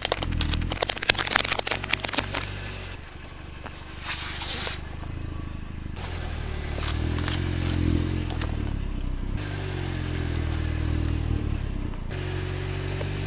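A car engine running, with a couple of seconds of dense crackling and scraping at the start, like plastic being crushed, and a short hiss about four seconds in.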